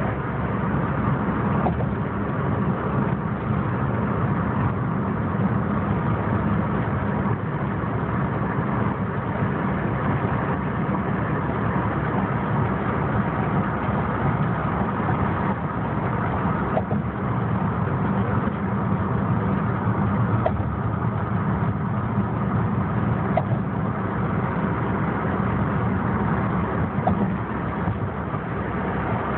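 Steady drone of a car driving, heard from inside the cabin: engine and road noise with no change in pace, and a few faint ticks in the second half.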